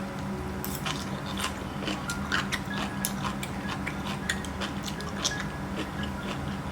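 Close-miked chewing and crunching of food, many quick irregular crunchy clicks, over faint background music.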